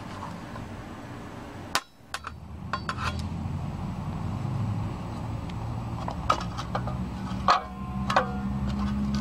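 A few sharp metal clinks and knocks, some with a short ringing tone after them, from the corroded metal reel of a 2-inch quad videotape being handled and worked at its hub. A low steady hum runs underneath.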